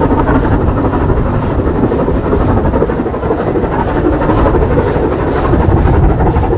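Strong wind buffeting the microphone as a steady low rumble, over the exhaust of the steam locomotive LMS Royal Scot 46115 Scots Guardsman, a three-cylinder 4-6-0, working a thirteen-coach train.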